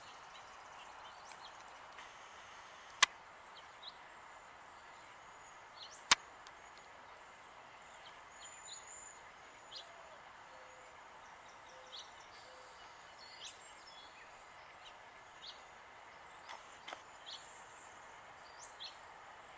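Quiet outdoor ambience with scattered faint, short high-pitched bird chirps, broken twice by a sharp click, about three and six seconds in.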